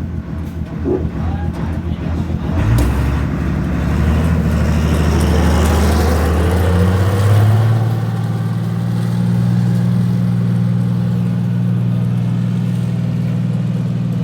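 Heavy diesel engine of a road roller running, with a knock about three seconds in; the engine speeds up a few seconds later and then holds a steady, higher drone.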